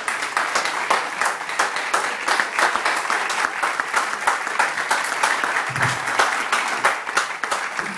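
Audience applauding: many hands clapping at once, steadily throughout.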